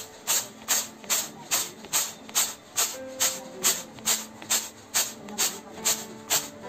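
Split black urad dal rattling in a bamboo winnowing basket (chhaj) jerked in a steady rhythm, about two and a half shakes a second. Each jerk tosses the grains against the woven basket, shaking out the fine broken bits from the clean dal.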